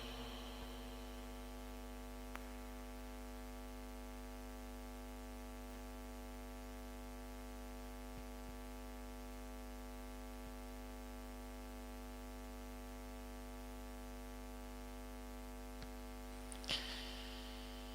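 Steady electrical mains hum, with a faint click about two seconds in and a brief faint noise near the end.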